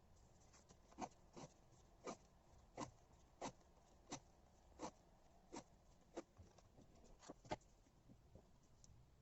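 Washi tape being wound by hand, giving about a dozen faint, evenly spaced ticks, roughly one every two-thirds of a second, that stop a little before the end.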